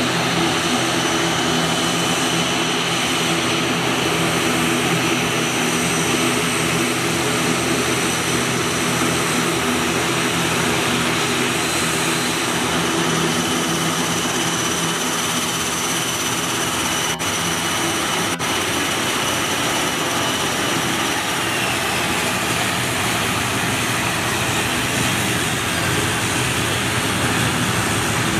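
ATR 72's twin turboprop engines running as the airliner taxis: a steady, loud propeller drone with a high turbine whine over it. The whine drops slightly in pitch past the two-thirds mark.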